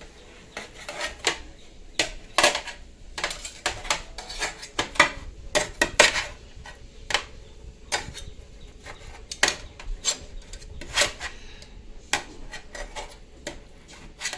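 Irregular clinks, taps and scrapes of a knife against a hard surface as baked chicken is sliced.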